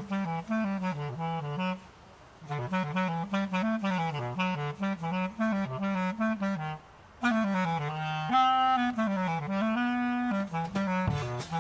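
Clarinet improvising fast, free-jazz runs of short notes, mostly in its low register. It breaks off twice for short pauses and holds a few longer notes in the last few seconds.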